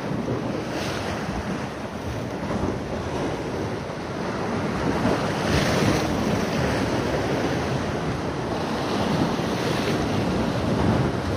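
Sea surf washing steadily against a rocky shore, swelling a little around the middle, with wind buffeting the microphone.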